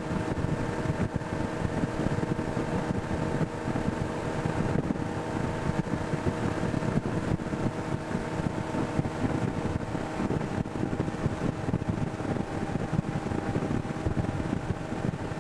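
Tow boat's engine running at a steady pulling speed, a constant drone, with wind buffeting the microphone and the rush of water.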